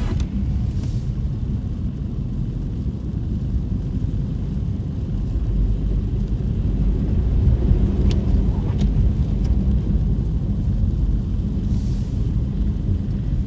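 A car driving: a steady low rumble of road and engine noise, with a couple of faint clicks about eight seconds in.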